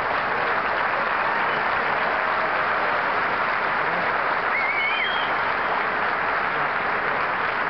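Large audience applauding steadily, with a brief high whistle about halfway through.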